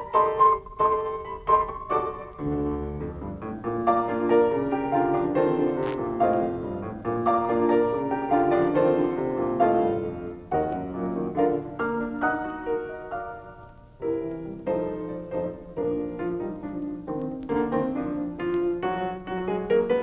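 Instrumental piano music, a steady run of changing notes and chords played continuously.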